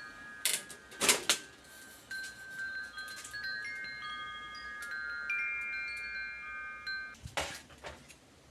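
Several overlapping bell-like ringing tones, each held a second or two and coming in one after another like chimes, with a few sharp clicks about half a second and a second in and again near the end.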